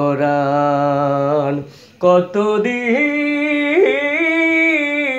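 A man singing a Bengali song. He holds a long low note on the word "poran", breaks off briefly, then sings a higher line of long sustained notes that step up and down.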